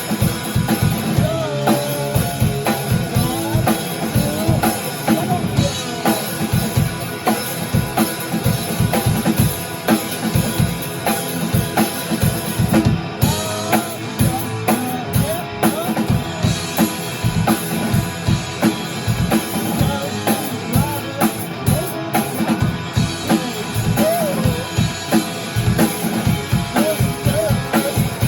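Rock band playing a song: a drum kit keeps a steady, driving beat with kick and snare under guitar.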